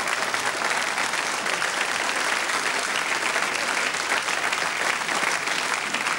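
Theatre audience applauding, a steady patter of many hands clapping.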